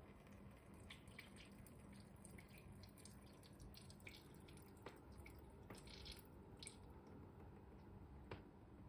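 Faint small splashes and drips of water as a magpie bathes in a bucket of water, scattered over several seconds.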